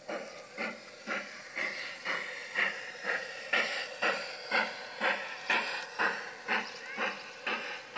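G-scale model steam locomotive chuffing in a steady beat of about two exhaust puffs a second as it runs past, louder about halfway through.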